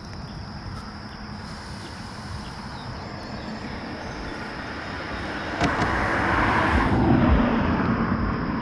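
A road vehicle passing over the bridge: tyre and engine noise builds up past the halfway point, is loudest about six to seven seconds in, then begins to fade.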